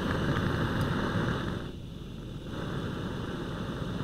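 Kovea TKL-N894 gas lantern burning on its gas canister, a steady hiss from the burner. The hiss dips briefly about halfway through, then carries on slightly quieter.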